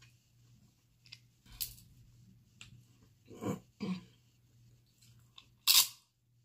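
Cooked Dungeness crab shell being pulled apart by hand and eaten: a few short cracks and crunches with chewing and mouth sounds, the loudest crunch near the end.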